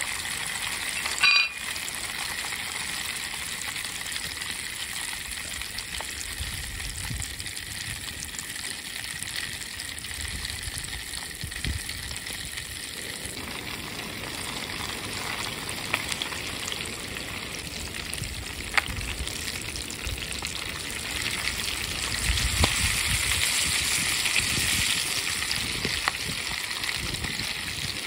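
Popcorn kernels frying in oil mixed with crimson glory vine juice in a foil pan: a steady sizzle and bubbling, with a few sharp pops in the second half as the first kernels burst. A brief loud clink about a second in.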